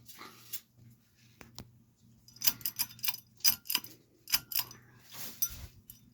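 A quick run of sharp metallic clinks and taps with a short ring, like metal ceiling-fan parts such as blade arms being handled and knocked together, over a low steady hum.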